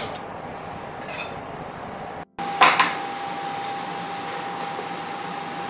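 Lidded lacquered soup bowl set down on a wooden tray: two sharp knocks about halfway through, over a steady hum. Before that, faint clinks of utensils at the cooking counter.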